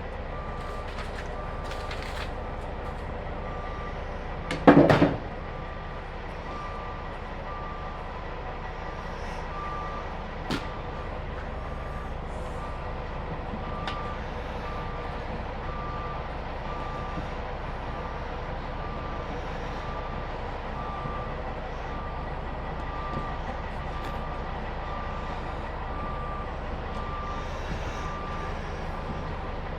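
A high electronic beep repeating evenly, a little faster than once a second, over a low steady hum, like a vehicle's reversing alarm. One short loud clank comes about five seconds in.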